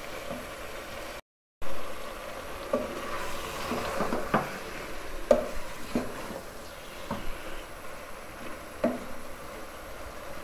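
Wooden spoon stirring sliced round gourd (tinda) and chicken in a pot as they sauté in masala, with a low frying sizzle. The spoon scrapes and knocks against the pot every second or so.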